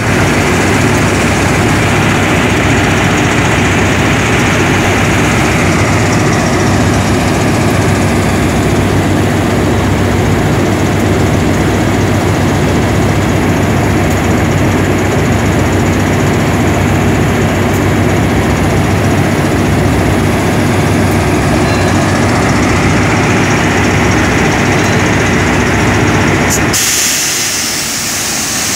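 State Railway of Thailand GEA-class diesel-electric locomotive No. 4559 idling at a platform: a loud, steady engine hum. About two seconds before the end, the low hum cuts off abruptly, leaving a hiss.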